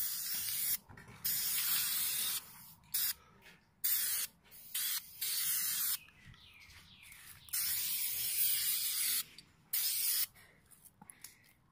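Aerosol spray-paint can hissing in repeated bursts as paint is sprayed, some bursts a fraction of a second and the longest about two seconds, with short pauses between.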